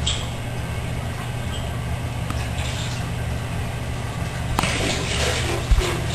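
Steady low mechanical hum, with a rushing hiss joining about four and a half seconds in.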